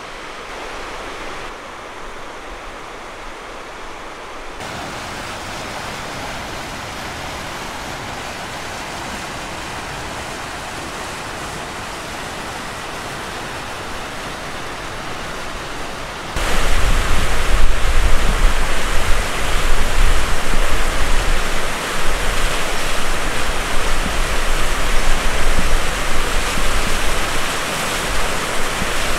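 Steady outdoor rushing noise, which turns suddenly louder and gusty with a low rumble about sixteen seconds in.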